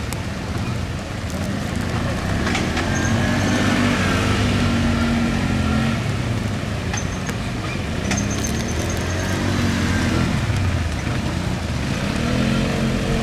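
ATV (quad bike) engine working through a muddy course, its revs rising and falling in several surges over a steady low rumble.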